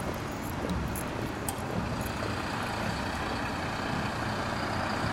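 Hard shoes striking asphalt in the first second or so, then a MAN fire engine's diesel engine running and growing louder as the truck drives past.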